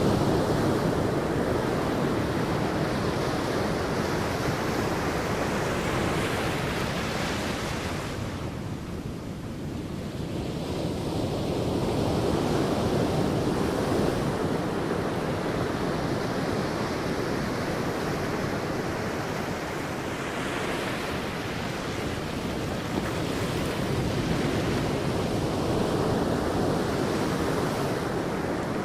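Sea waves breaking and washing up a beach, a continuous rush of surf that swells and falls back, with a short lull about a third of the way through before the next wave builds.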